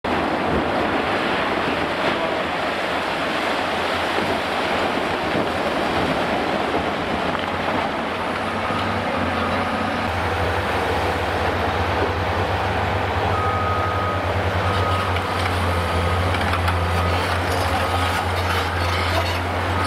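Diesel engine of a Cat 390D high-reach demolition excavator running, a steady low drone over general demolition-site noise, growing stronger about halfway through. In the second half, short high beeps repeat at uneven intervals.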